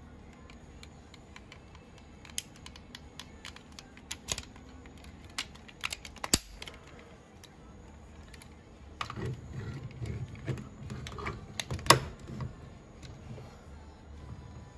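Hard plastic parts of a DX King-Ohger combining robot toy clicking as they are handled and fitted together: scattered sharp clicks in the first half. About nine seconds in comes denser handling with rubbing, knocks and clicks, and the loudest snap comes near twelve seconds.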